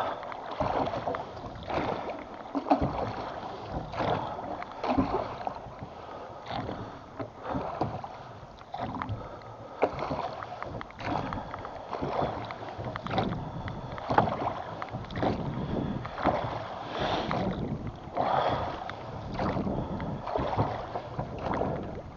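Oars rowing a small boat in a steady rhythm: water swishing and splashing with each stroke, with an occasional sharp knock of an oar in its oarlock.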